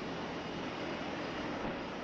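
Steady, dense drone of large aircraft engines, with no distinct blast in it.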